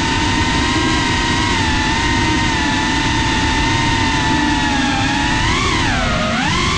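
FPV quadcopter's brushless motors and propellers whining at a steady pitch over a low rushing noise; near the end the whine dips and swings back up as the throttle changes.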